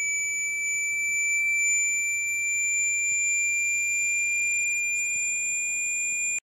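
Synthesized sine tone gliding slowly upward from about 2,300 to 2,400 Hz, part of a frequency sweep meant to shake water out of a phone speaker. It cuts off suddenly just before the end.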